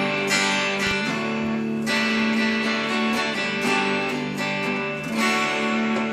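Epiphone Sheraton semi-hollow electric guitar on its neck pickup, played through a LoveDrive overdrive pedal (a Zendrive clone) with the gain turned up a little. Chords are strummed about once a second and left to ring.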